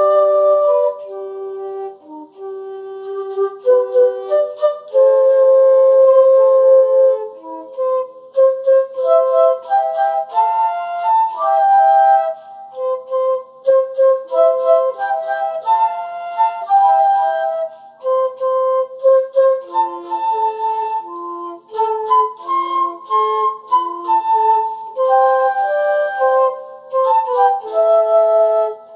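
Two concert flutes playing a slow duet, one carrying the melody and the other a harmony line, often sounding two notes at once.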